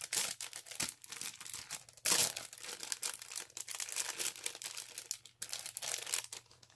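Clear cellophane packaging crinkling as it is handled, in irregular crackles, loudest about two seconds in.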